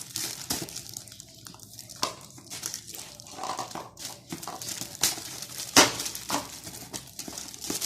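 Packaging being handled as an item is worked out of a box: rustling and crinkling with scattered sharp clacks and knocks, the loudest about five and six seconds in.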